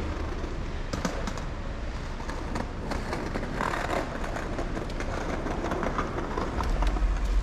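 Riding noise from a bicycle moving along a city street: a steady low wind rumble on the microphone over the rolling noise, with a few sharp rattling clicks about a second in and again around three to four seconds.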